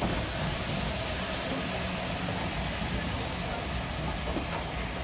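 Train running on the line: a steady rumble of wheels on rail.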